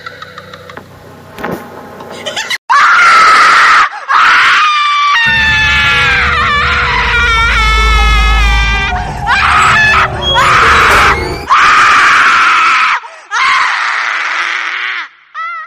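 Horror ringtone sound effect of a witch's voice: a run of loud, high-pitched screams starting about three seconds in, each lasting a second or two with short breaks. In the middle a deep low rumble sits under a wail that falls in pitch.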